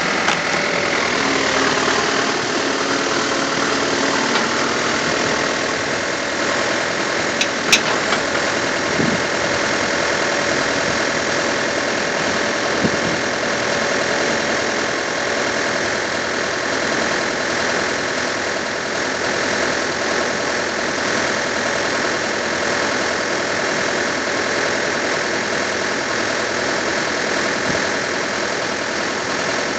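Backhoe loader's diesel engine running steadily, with a couple of sharp clicks about eight seconds in.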